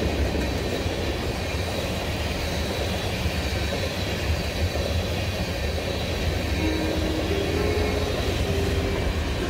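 Freight train of tank cars rolling past close by: a steady low rumble of wheels on rail. About two-thirds of the way through, a soft melody of held notes comes in over the train noise.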